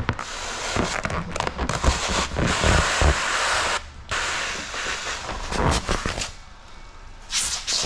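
Sprayer hissing as it wets paint protection film and paint with slip solution, in two long sprays about four and two seconds long. Crackles and low thumps come from the film being handled.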